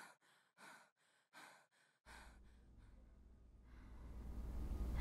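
Faint, quick breathing, about three short breaths a second, fading away over the first two to three seconds. A low hum then comes in, and a haze of ambient noise swells toward the end.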